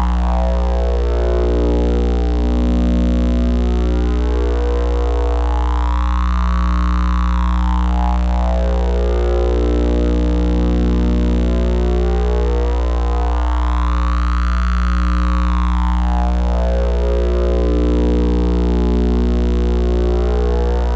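Electronic oscillator drone: a loud, steady low hum under a stack of held overtones, with a high sweeping tone that rises and falls in a slow arc about every eight seconds.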